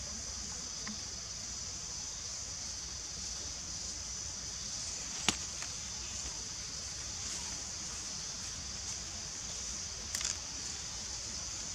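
Steady high-pitched drone of forest insects. A single sharp click comes about five seconds in, and a short cluster of clicks near ten seconds.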